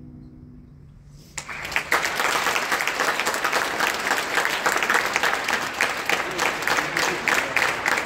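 A faint held note dies away, then about a second and a half in an audience breaks into steady applause.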